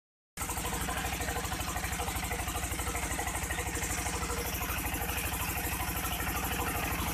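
Small fishing boat's engine running steadily under way with a fast, even throb, and a hiss of water rushing past the hull.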